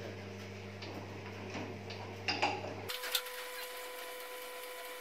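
Irregular metal clicks and clinks from a milling machine's knee-elevating crank handle being worked to raise the knee, over a steady low hum. The hum changes abruptly about three seconds in.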